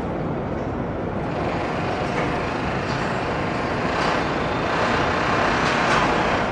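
Steady traffic noise, a dense rumble and hiss that swells somewhat louder in the second half.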